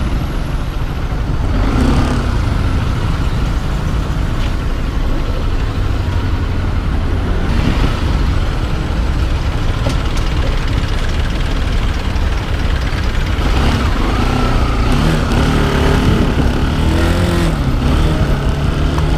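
Motorbike engine running while riding, heard from a bike-mounted camera, with road and traffic noise. Its pitch rises and falls a few times in the last few seconds as it changes speed.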